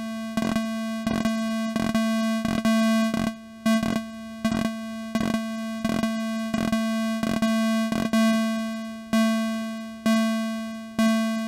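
Modular synthesizer voice repeating one steady low note, each note starting sharply and dying away, its volume shaped by a Make Noise Maths envelope whose rise and fall are swept by an LFO, so the note lengths and decays keep changing. Near the end the notes come about once a second with long fading tails.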